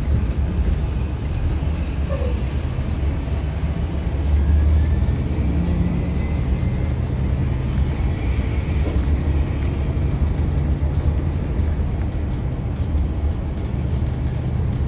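Aircraft noise: a steady low rumble with a faint high whine above it.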